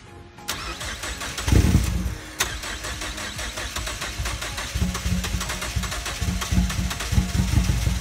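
Freshly rebuilt 2.3-litre turbocharged four-cylinder of a Mazdaspeed 3 being started: a loud burst about one and a half seconds in, then the engine running with an uneven pulse from about five seconds on.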